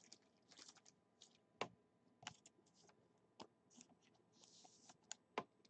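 Faint scattered clicks and soft rustles of trading cards and plastic card sleeves being handled.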